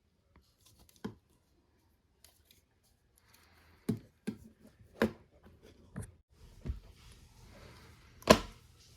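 Small hard objects being handled on a work surface: a series of irregular clicks and knocks, the loudest near the end, with light rustling between them.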